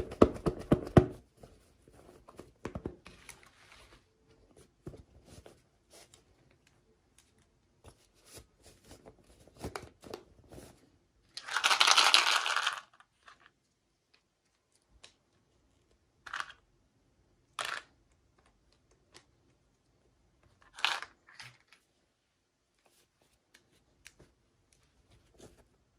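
Doll packaging being handled and opened: scattered rustles, taps and clicks, with one loud tearing sound lasting about a second, around halfway through, and a few short ripping or scraping sounds after it.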